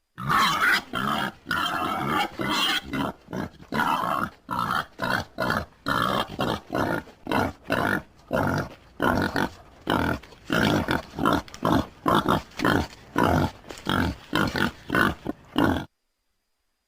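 Wild pig grunting in a long, rapid series of short grunts, about two or three a second, cutting off suddenly near the end.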